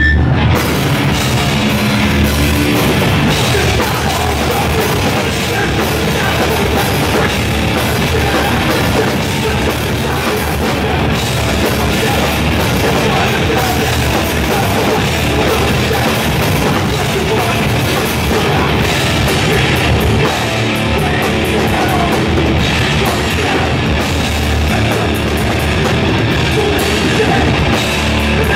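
Hardcore punk band playing a song live, loud and without a break: distorted electric guitars and a drum kit.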